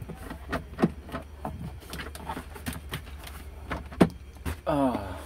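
Scattered clicks and knocks from hands working the rear interior trim of a BMW F10 as the rear seat cushion is lifted up, with the loudest knock about four seconds in, over a low steady hum. A short vocal sound comes near the end.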